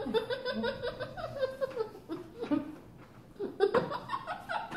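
A woman laughing with her mouth full of marshmallows, with a boy laughing along.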